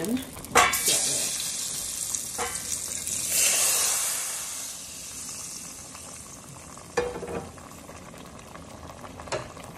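Hot fried fat meat and its grease poured from a skillet into a pot of boiling cabbage, sizzling for a few seconds, then dying down. Metal pans clank, most sharply about half a second in, with a few lighter knocks later.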